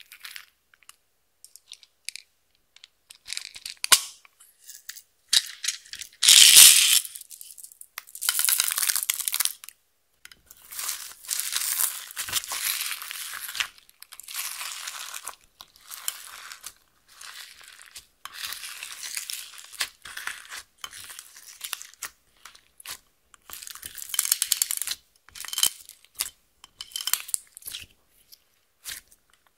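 Hands squishing, pressing and folding clear slime loaded with glitter, beads and small cubes in a glass dish: irregular bursts of crackling, crunchy squelching separated by short silences, the loudest about a quarter of the way in.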